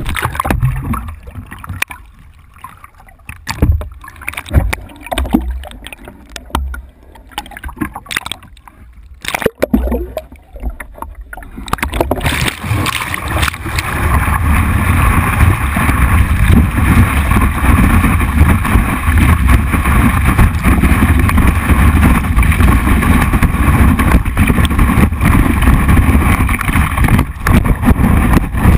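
A board-mounted action camera is knocked and handled, with intermittent splashing and sloshing water. About 12 seconds in, a loud, steady rush of water builds as the wakeboard gets up to speed and planes across the lake, with spray and wind buffeting the camera.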